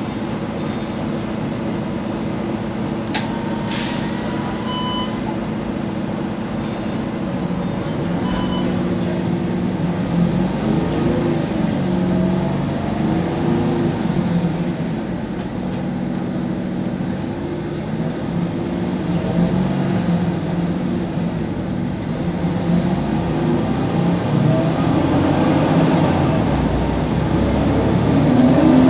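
Mercedes-Benz Conecto NGT city bus heard from inside the cabin: its CNG engine and noisy cooling fan keep up a steady drone, while the Voith automatic transmission's whine rises and falls in pitch as the bus drives and changes speed, growing louder near the end. A sharp click-hiss about four seconds in and short electronic beeps about five and eight seconds in.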